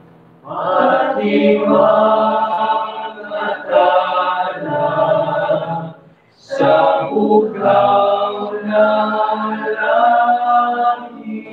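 Male choir singing together in a practice session, pausing briefly between phrases about six seconds in before starting the next phrase.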